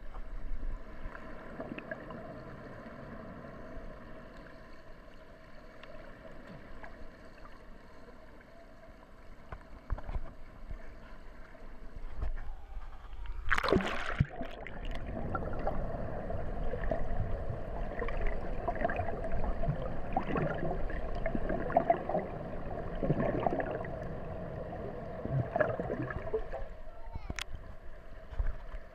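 Pool water as heard by a submerged camera: a steady muffled hum with sloshing and gurgling, a loud splash-like rush about 14 seconds in as the camera swings, then busier muffled voices and water noise. A sharp click near the end.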